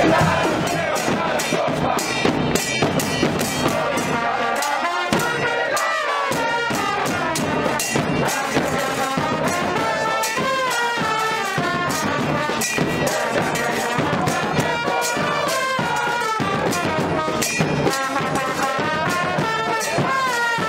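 A football supporters' band in the stands: trombones and trumpets play a stepwise chant melody over regular bass-drum beats.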